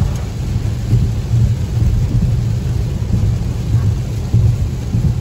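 Heavy rain hitting a moving car's roof and windshield, heard from inside the cabin: a steady hiss over a deep, continuous rumble of tyres on the wet road.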